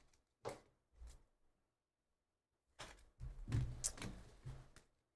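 Faint handling and movement noises from a person at a desk: two small clicks within the first second, then after a pause about two seconds of rustling and knocks.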